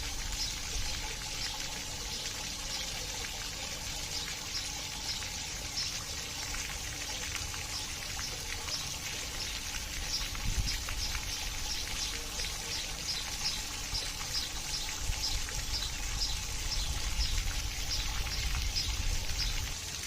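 Running water trickling and pouring steadily, with a run of short high-pitched chirps or ticks repeating a few times a second over it.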